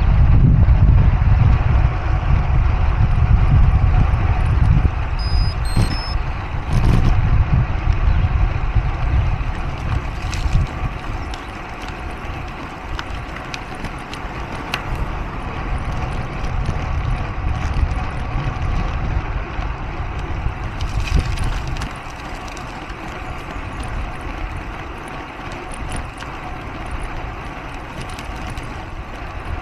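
Road noise of motor traffic heard from a bicycle: a steady low rumble of passing vehicles, loudest for the first ten seconds or so, then easing off.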